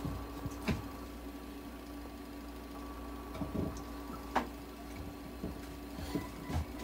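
Steady machine hum of a nebulizer running, making medicated mist for a cat's inhalation therapy, with a few light clicks and ticks, the sharpest about a second in and again past the middle.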